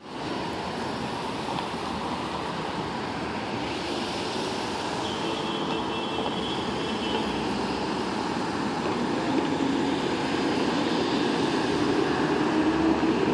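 City street traffic: a steady wash of passing cars and idling engines, growing a little louder near the end as a heavier engine draws closer. A faint high squeal runs for a couple of seconds around the middle.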